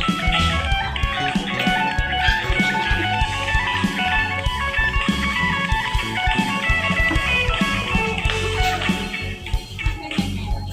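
Music led by electric guitar, with low bass notes underneath.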